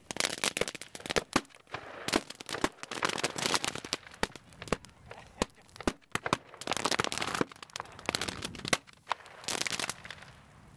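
Fireworks going off inside a burning pallet bonfire: rapid, irregular sharp cracks and pops coming in dense crackling spells, settling down near the end.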